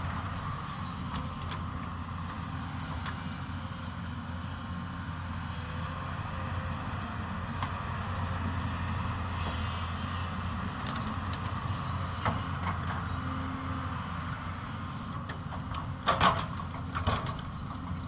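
Hyundai 220 excavator's diesel engine running steadily under work, with a few sharp knocks near the end.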